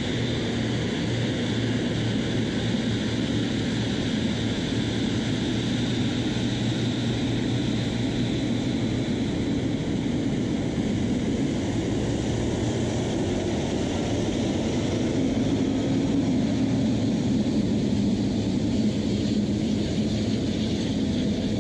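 Air France Boeing 777-300ER's GE90 turbofan engines running steadily at low power as the airliner taxis past, a continuous jet rumble with a high fan whine. The sound swells slightly as the aircraft goes by.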